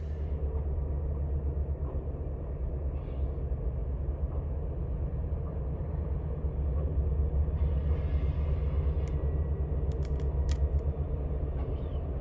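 Diesel locomotives of a freight train working upgrade: a steady, deep engine rumble that grows a little louder about seven seconds in, with a few brief high squeaks or clicks around nine to ten seconds in.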